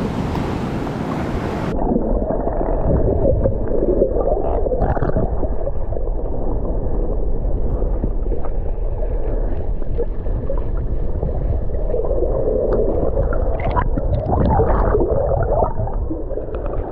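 Muffled sloshing and gurgling of water, with the high end suddenly dulled about two seconds in, as through a camera that is underwater or in a waterproof housing.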